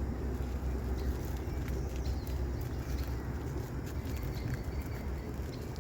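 Steady low rumble of wind on the microphone, with faint scattered ticks.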